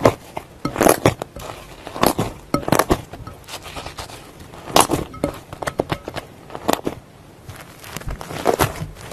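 Fluffy slime being squeezed and kneaded by hand, then stretched apart: soft crackling broken by sharp pops and squelches every second or two.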